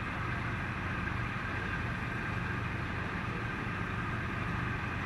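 Ship's engines running steadily: an even low drone with a constant higher whine above it.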